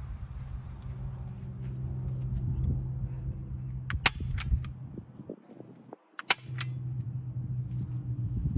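Staple gun firing two sharp clacks about two seconds apart, driving staples, with a fainter click just after the second.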